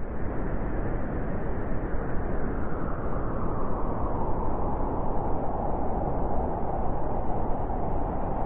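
Howling blizzard wind: a steady rush of noise whose howl slowly drops in pitch over the first few seconds, then holds.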